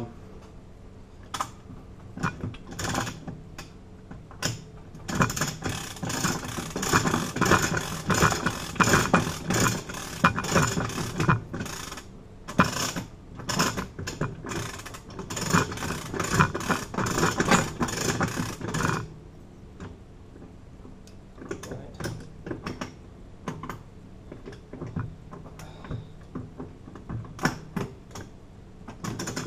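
Rapid metallic clicking and rattling from hand tools and hardware being handled, dense for about fourteen seconds in the middle, with scattered single clicks before and after.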